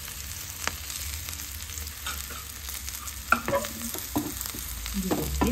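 Chopped garlic sizzling in hot oil in a pan, stirred with a spoon that scrapes and clicks against the pan, with a sharp clack a little over three seconds in.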